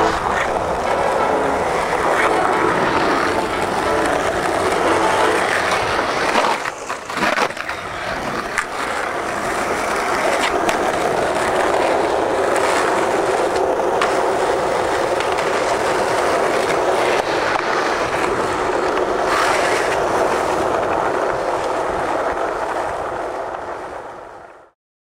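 Skateboard wheels rolling on asphalt, a steady rolling noise with a few sharp clacks and knocks from the board, fading out near the end.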